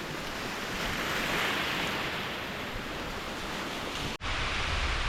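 Ocean surf washing on the beach, one wave swelling about a second in, with wind buffeting the microphone. The sound cuts out for an instant about four seconds in, after which the low wind rumble on the microphone is stronger.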